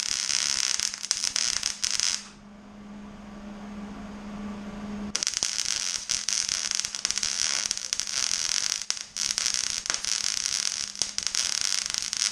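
Electric arc welding on a mower deck: the arc crackles and sputters for about two seconds, stops for about three seconds, leaving only a steady low hum, then crackles again from about five seconds in.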